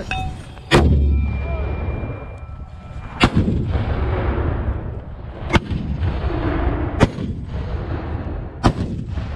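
81mm mortars firing: five sharp reports spread irregularly over about eight seconds. The first, about a second in, is the loudest, with a deep boom after it.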